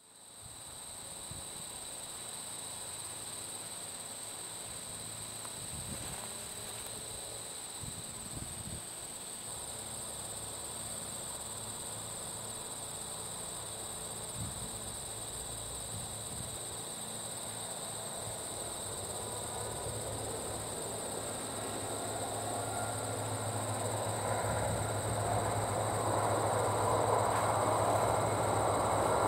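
A VIA Rail passenger train led by an F40PH-2 diesel locomotive approaching, its engine rumble and running noise growing steadily louder through the second half. A steady high-pitched hum runs underneath throughout.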